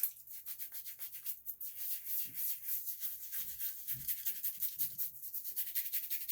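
Boar-bristle shaving brush swirling Williams soap lather, a quick rhythmic wet scrubbing of several strokes a second.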